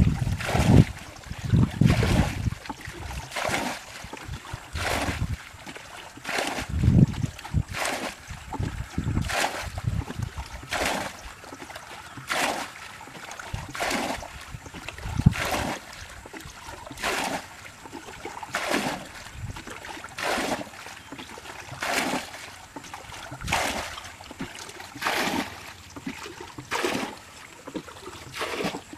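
Muddy water being bailed by hand with a plastic bucket: a scoop and a splash of flung water about every second and a half, in a steady rhythm.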